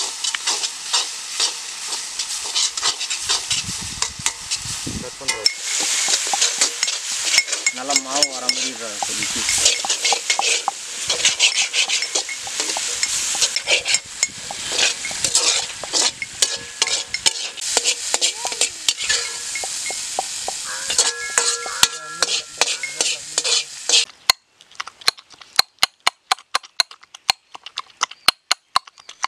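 Chopped tomatoes sizzling in hot oil in a black iron kadai while a steel ladle scrapes and stirs them. About 24 seconds in the frying stops and a steel pestle pounds in a small steel cup, a steady run of sharp knocks.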